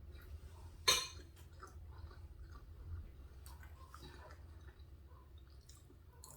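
Faint chewing of soft macaroni and cheese, with one sharp click about a second in, over a steady low hum.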